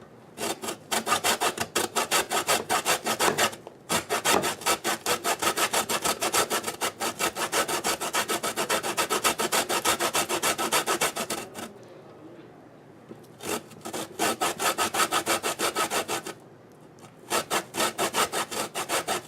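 A lemon's rind being zested on a grater: quick, even rasping strokes in runs, with short pauses between them.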